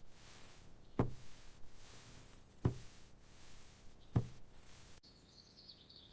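Three dull knocks or thuds, evenly spaced about a second and a half apart. Near the end, after a sudden drop, a faint high wavering chirp begins.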